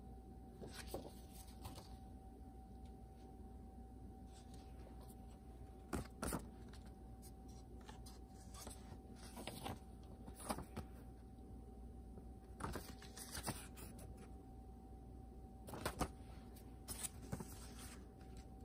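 Paper cards and a booklet handled by hand over a cardboard box insert: scattered soft rustles and light taps every second or few, over a faint steady tone.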